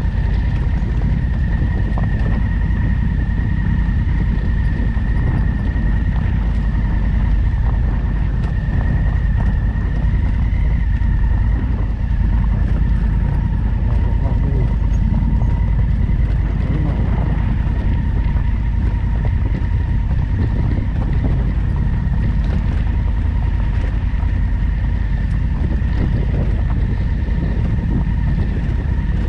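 Adventure motorcycle running steadily on a ride, with wind rumbling on the onboard microphone and a thin steady whine.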